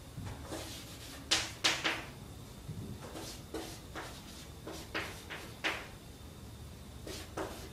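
Chalk writing on a chalkboard: a run of short, irregular scratches and taps as an equation is written out, about a dozen strokes.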